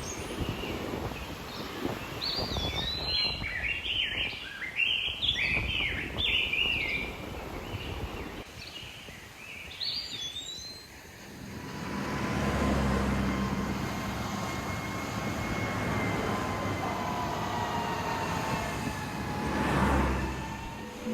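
Birds chirping and calling quickly over the steady wash of surf. About halfway through, a passing engine's drone comes in with a slowly falling whine and swells near the end.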